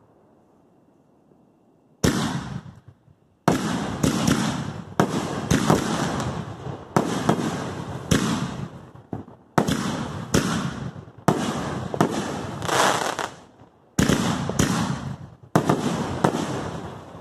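Consumer aerial fireworks bursting in quick succession. Sharp reports come about one or two a second, each trailing off, starting about two seconds in. There is a short pause near the end.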